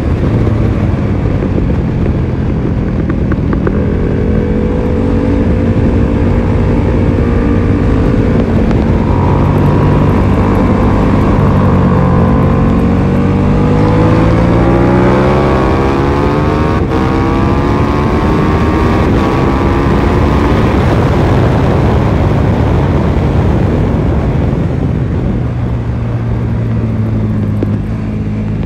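KTM 1290 Super Duke R's V-twin engine at track speed, heard from the rider's seat over heavy wind rush. Its pitch holds, then falls over a few seconds as the bike slows for a corner, climbs again as it accelerates out, and settles.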